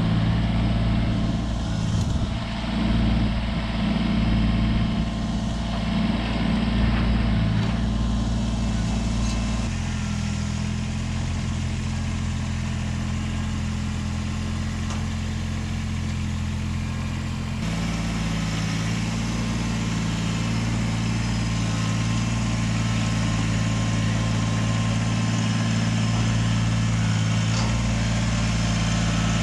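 Kubota BX23S compact tractor's three-cylinder diesel engine running steadily while the tractor moves the dump trailer. Its engine note shifts lower about ten seconds in and comes back up about eight seconds later.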